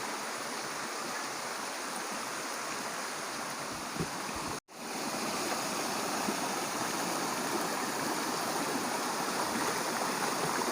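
Steady rush of flowing water in a hill stream. The sound cuts out for an instant a little under halfway through, then carries on the same.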